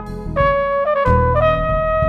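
Background music with a brass lead playing held notes over a bass line, the last note held from about midway.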